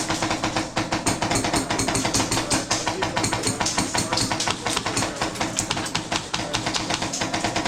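Sustained rapid airsoft gunfire, a dense run of sharp cracks many times a second.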